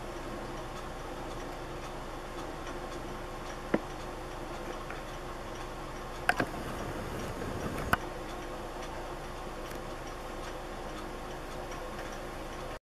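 Steady faint background noise with soft, regular ticking, broken by a sharp click about four seconds in, a quick double click past the middle and one more click about two seconds later.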